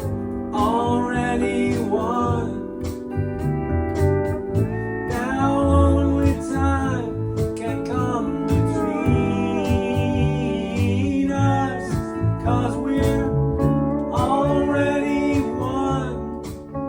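A band playing a slow song, with a singer's voice and guitars.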